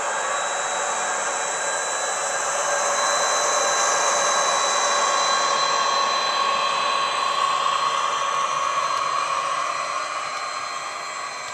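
Model-railway sound decoder (ESU LokSound HiFi) playing an ÖBB class 2016 diesel-electric locomotive's engine through a passive radiator speaker, running steadily under load with a high whine over the drone as the model passes. It grows louder a few seconds in and fades near the end as the locomotive moves away.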